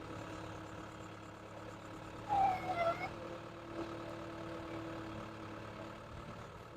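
Caterpillar 287B skid steer's turbocharged engine running steadily at idle. A brief, louder call like a voice rises over it a little over two seconds in.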